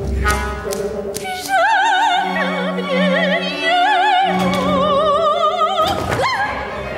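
Operatic soprano singing high with a wide vibrato over long held low notes from the orchestra. Near the end the voice swoops sharply down and back up.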